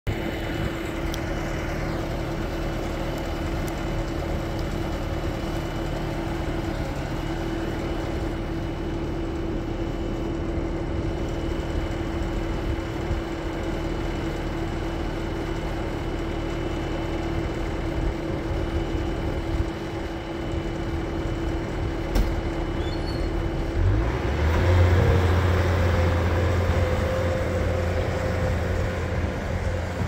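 Bobcat skid steer's diesel engine running steadily with a thin high whine; near the end the engine note drops lower and grows louder as the machine is put under load and drives off.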